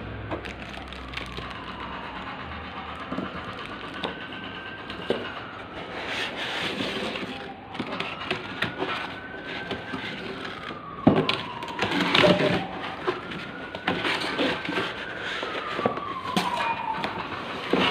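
An emergency-vehicle siren wailing, slowly rising and falling about every four to five seconds. Over it come crinkling plastic and knocks of cardboard and foam packing as a laptop box is unpacked, loudest a little past the middle.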